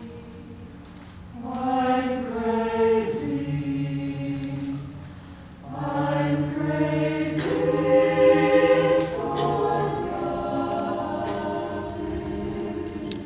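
Mixed choir of women's and men's voices singing held chords in two phrases. The first swells about a second and a half in and falls back. The second comes in louder, peaks past the middle and slowly dies away toward the end.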